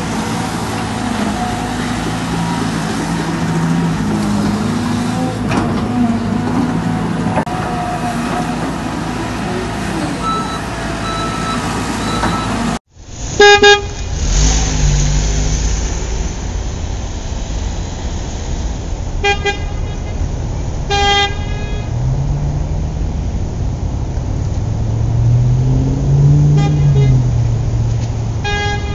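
RC construction models. First there is a steady motor hum while an RC excavator loads mud into a dump truck. After a loud burst at a cut, an RC Volvo articulated dump truck drives on grass with a low engine-like drone that rises and falls, and several short horn toots.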